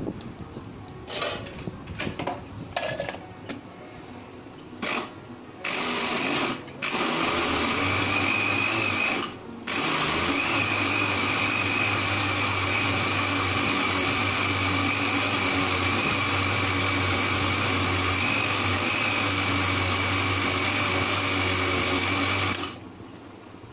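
Electric countertop jug blender grinding a thick milk mixture: a few short pulses at first, then running steadily with a high whine, with one brief stop about nine seconds in. It cuts off about a second before the end.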